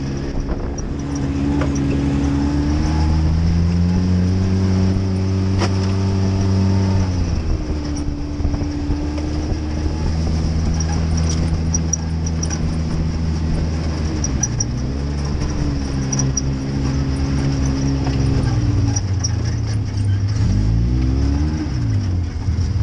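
Side-by-side UTV's engine running under way, its pitch rising and falling as the throttle is worked, with a quick rev up and back down near the end.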